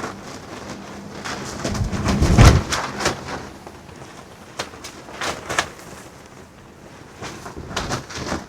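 Wind buffeting the microphone, with loose clothing fabric flapping and snapping in the gusts. The loudest gust comes about two and a half seconds in, and the flapping comes in several bunches of quick snaps.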